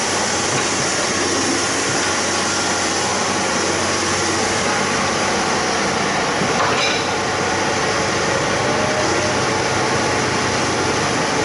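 Excavator running steadily, a dense, even mechanical noise with a brief knock about seven seconds in.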